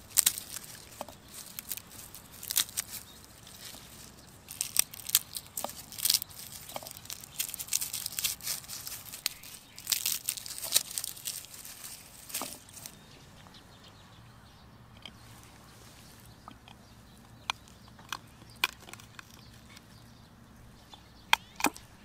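Dry, papery garlic skins crackling and tearing as cloves are broken off the bulb and peeled by hand on a wooden board, with dense crinkling through the first half. After that it goes quieter, with only scattered single clicks and taps as the cloves are handled.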